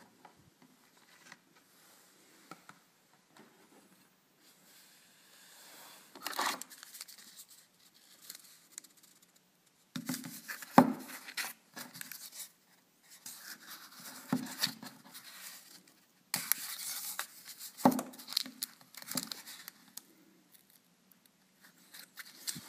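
Cardboard packaging being handled and pulled apart: tearing and rustling of cardboard and tape in several bursts, with a few sharp knocks, the loudest about eleven and eighteen seconds in.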